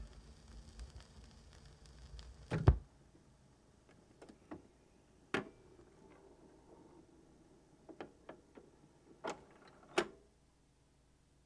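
Turntable after a 45 rpm single ends: faint stylus surface noise, then a loud thump about two and a half seconds in as the tonearm leaves the record. Scattered sharp clicks and knocks from the turntable follow, and a faint hum stops shortly before the end.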